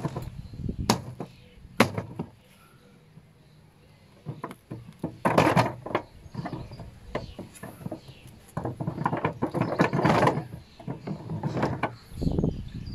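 A car jack in its clip-on holder being pushed and clipped onto the steel bar of a spare wheel cage: a few sharp knocks, then bursts of rattling and scraping of metal and plastic as it is worked into place.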